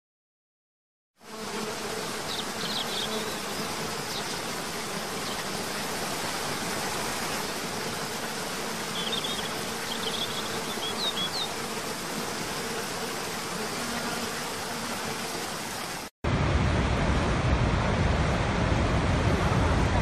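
Steady rush of falling water, with a faint buzz and a few short high chirps, like birds. About sixteen seconds in it cuts off sharply and gives way to a louder, deeper rush.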